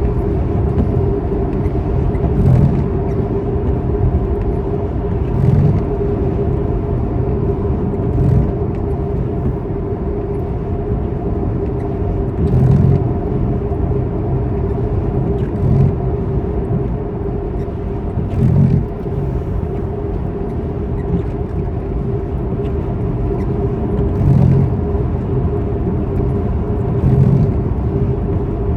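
A motor vehicle running steadily, with a low rumble and a steady hum, and a soft thump repeating about every three seconds.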